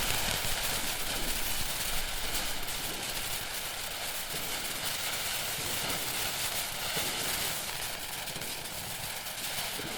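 Ground firework fountain (Peacock, РС4555) burning, spraying sparks with a steady hiss and dense fine crackle that eases slightly toward the end.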